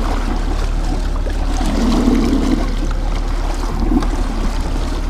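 Boat's outboard motor running steadily while trolling, with water churning and splashing at the stern and wind on the microphone.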